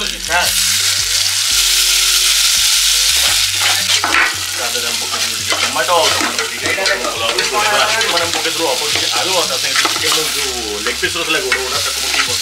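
Red spice paste and chicken sizzling in hot oil in an aluminium pot while a metal spoon stirs. The sizzle is loudest for the first few seconds, then goes on more unevenly under the stirring.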